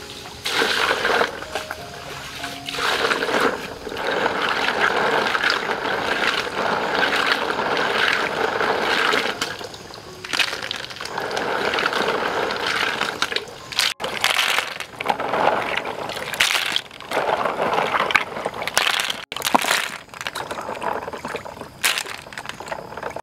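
Water poured from a plastic dipper into a plastic basin of live snails and sloshed around as the snails are washed by hand, in several long spells of pouring and splashing with short breaks.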